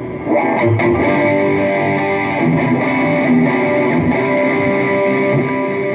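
Stratocaster-style electric guitar played through a Mooer GE200 multi-effects processor into an amplifier, picked up by a phone's microphone from the amp: a phrase of sustained notes and chords, changing several times, with a firmer attack about a third of a second in.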